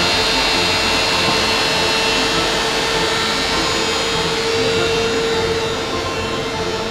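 KUKA robot controller cabinet's cooling fans running: a loud, steady whir with a steady hum tone, easing a little near the end.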